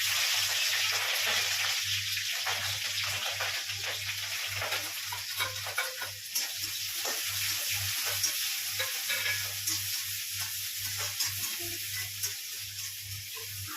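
Food frying in hot oil in a pan, a steady sizzle full of small crackles and pops.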